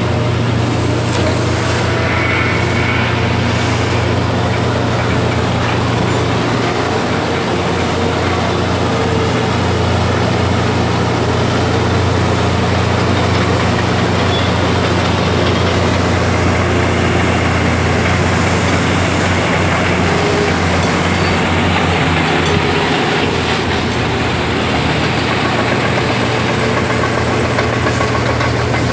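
Large diesel engine running steadily, a continuous low drone with a fast pulsing throb underneath, from heavy machinery at work during ship loading.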